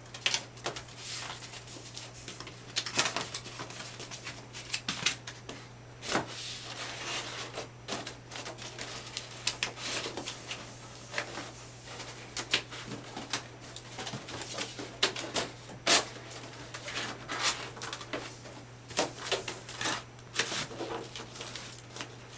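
Cardboard display dividers being handled, folded and tucked into place: irregular rustling, scraping and sharp snaps of the cardboard, over a steady low hum.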